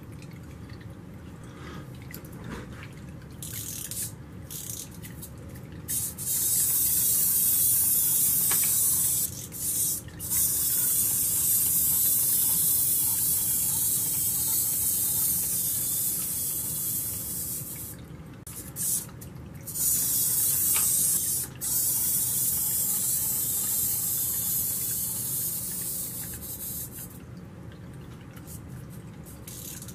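Tabletop decorative water fountain running: water trickling and splashing into a pebble-filled bowl as a steady hiss that drops out briefly several times, over a low steady rumble.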